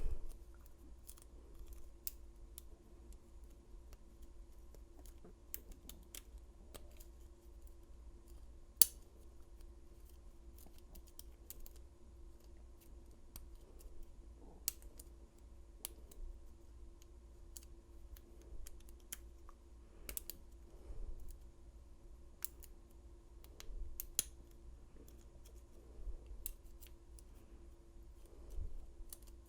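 Small, irregular metallic clicks and ticks of a lock pick and tension wrench working the pins of an old Yale padlock, with one sharper click about nine seconds in, over a faint steady hum.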